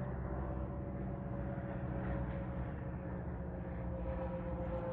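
Light single-engine propeller plane, a high-wing Cessna, droning overhead, its engine and propeller tone falling slowly in pitch as it passes.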